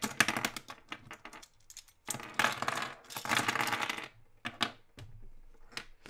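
Plastic Rubik's cube pieces clicking as the cube is pulled apart by hand, then a clatter of loose pieces spilling and rattling onto the table for about two seconds, with a few single clicks near the end.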